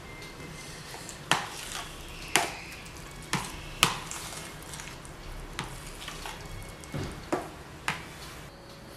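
Fork stirring a thick avocado and cream mixture in a ceramic bowl, clinking sharply against the bowl about eight times at irregular intervals.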